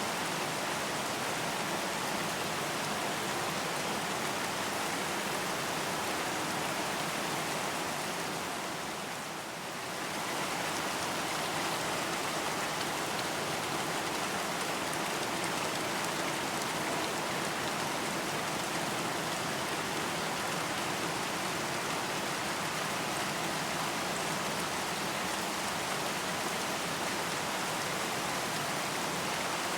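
Steady rain: an even, dense hiss of many drops, softening briefly about nine seconds in.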